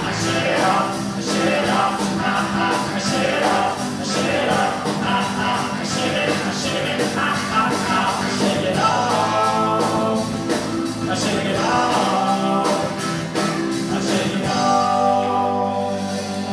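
Live rock band of guitar, keyboard and drum kit playing a song with a steady drum beat; near the end the drums stop and a held chord rings out.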